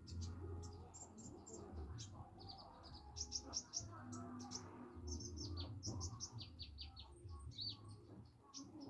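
A kolibri ninja sunbird chirping in quick runs of short, high notes over a low steady hum: a young bird practising its song, still hesitant.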